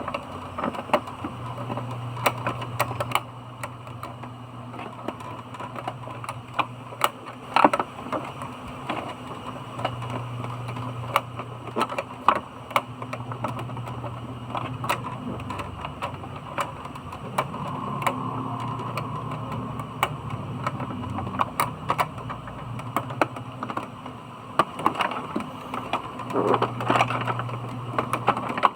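Irregular clicks and taps of plastic printer parts and small tools being handled, over a low hum that comes and goes.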